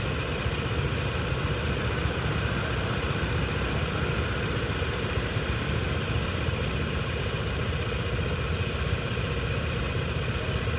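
Steady traffic noise with vehicle engines idling, a low, even hum.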